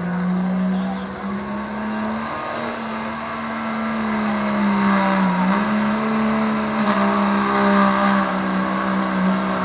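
Turbodiesel pulling truck at full throttle hauling a sled down the track. The engine note holds steady with a brief dip about halfway through and grows louder as the truck comes closer.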